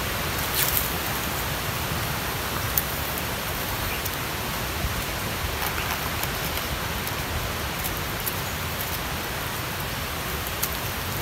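Steady outdoor background hiss, spread evenly from low to high pitches, with a few faint clicks scattered through it.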